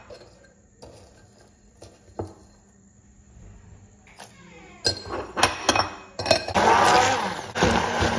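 Several clinks of a spoon and utensils against a glass bowl. About six and a half seconds in, a hand-held immersion blender starts and runs, grinding peppers, onion and spices into a paste in the glass bowl, with a short break near the end.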